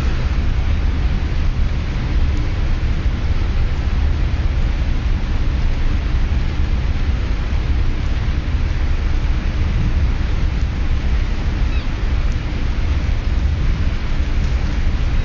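Steady deep rumble with a hiss over it, with no single thunderclap: a ferry's engines and wake with wind on a mobile phone's microphone, on the open rear deck.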